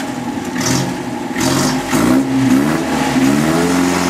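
1953 MG TD's 1,250 cc XPAG inline-four running, with the revs rising briefly about two seconds in, then climbing again and holding near the end.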